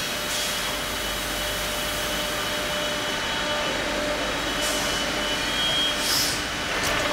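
Steady hum of industrial machinery running, with three short high-pitched hisses.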